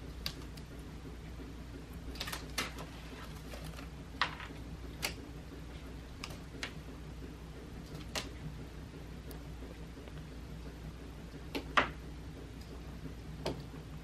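About ten light, irregular taps and clicks from a cat's play with a fishing-pole wand toy with a feather on the end, the loudest a little before the end, over a steady low hum.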